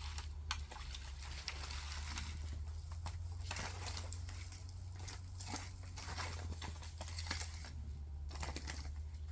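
Potting mix being filled into a 128-cell plastic seedling plug tray: scattered rustling, pattering and light clicks of the soil against the plastic, over a steady low hum.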